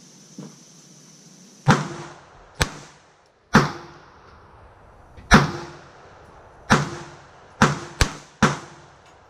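Semi-automatic pistol fired shot by shot: eight sharp reports, each trailing off quickly, irregularly spaced about a second apart, with the last three coming faster near the end.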